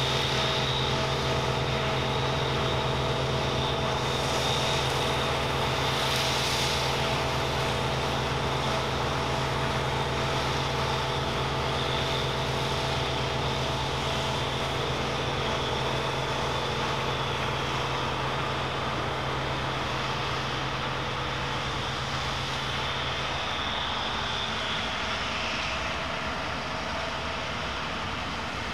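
Claas Dominator 98 SL combine harvester running steadily: a constant engine drone with a high whine over it. Near the end the low hum thins and the whine fades out.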